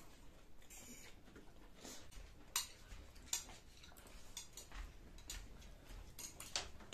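Quiet sounds of eating noodles: irregular soft smacks and slurps, with light clicks of a fork and chopsticks. The sharpest click comes about two and a half seconds in.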